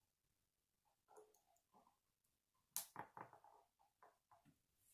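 Plastic K'nex rods and connectors being handled and snapped together: quiet, scattered clicks and small rattles, the sharpest click nearly three seconds in.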